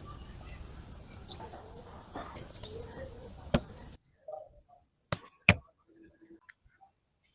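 Small clicks and taps of tools and metal clock parts being handled, with a few short high squeaks over a steady hiss. About four seconds in the hiss cuts off, and two sharp clicks follow against silence, the second the loudest.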